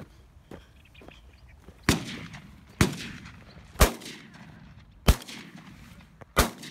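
Five shotgun shots fired in quick succession, about a second apart, each followed by a short echo.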